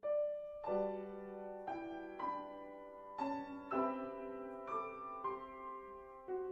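Background music: a gentle piano melody of struck notes and chords, each ringing on, that starts abruptly.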